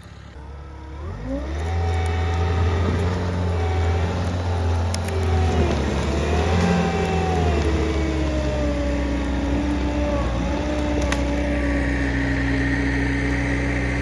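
A vehicle engine revs up about a second in and keeps running at raised speed, its pitch wavering and then settling a little lower near the end, as it drags a felled tree out on a log chain.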